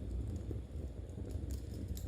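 Knitting needles clicking lightly a few times over a steady low rumble.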